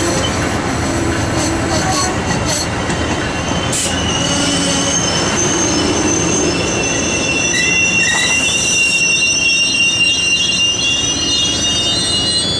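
Amtrak passenger coaches rolling slowly into the station, with a dense running rumble and a few sharp clicks early on. About four seconds in, a high, steady squeal of several tones sets in from the slowing train's wheels and brakes and holds on as it comes to a stop.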